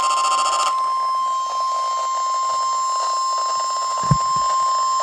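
NOAA Weather Radio 1050 Hz warning alarm tone, a single loud steady tone announcing that a severe thunderstorm warning message follows. A rough pulsing buzz overlaps it for under a second at the start, and a short low thump comes about four seconds in.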